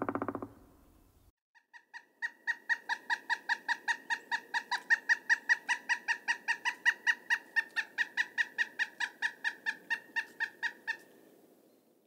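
A woodpecker's rapid series of short, sharp notes, about five a second. It starts softly about a second and a half in, runs evenly, and stops near the end.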